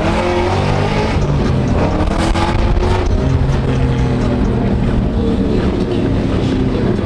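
Cammed V8 of a Holden VY Commodore SS running hard on the road, its revs falling and climbing again several times.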